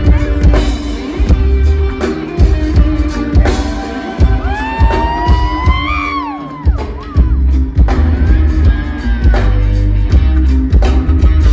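Live reggae band playing, with heavy bass, a drum kit keeping a steady beat, and guitar. About halfway through, a held melody line slides up and then falls away.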